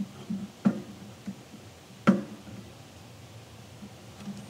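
Snare drum head tapped twice by hand, about a second and a half apart, each tap ringing briefly, with a few light ticks of handling in between.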